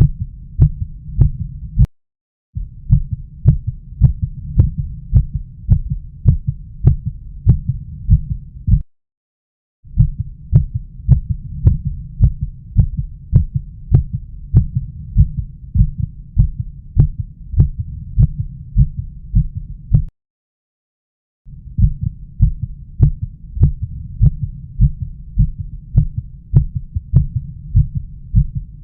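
Human heartbeat heard through a stethoscope: a steady run of deep, regular beats with a low rumble between them. It breaks off into silence three times for about a second.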